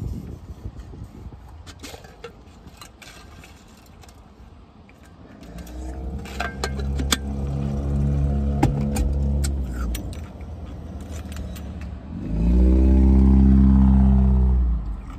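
Car keys jangling, with light clicks and rattles through the first ten seconds. Twice, a steady mechanical hum comes from the car: one from about five seconds in to ten seconds, and a louder one near the end. Each rises in pitch as it starts and cuts off after a few seconds.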